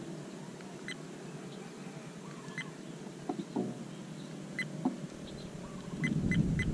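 Supremo Premiere 4K action camera giving short high beeps as its buttons are pressed to change a setting: single beeps about one, two and a half and four and a half seconds in, then a quick run of beeps near the end. Light handling clicks come between the beeps, and rumbling wind and handling noise rises at the end.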